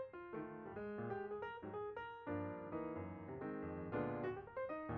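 Background piano music, a line of notes with chords changing several times a second.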